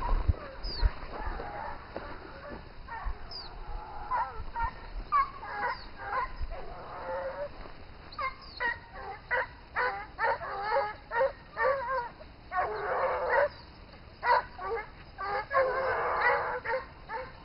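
A pack of hunting dogs barking and baying while chasing a wild boar. The barks are scattered at first and come thick and fast from about halfway, with stretches where several dogs give tongue at once. There are a few low knocks in the first second.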